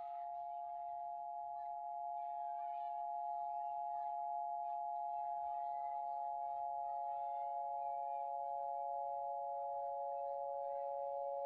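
A steady drone of several sustained tones held together, with a lower tone joining about four seconds in. Faint, wavering chirps flicker above it.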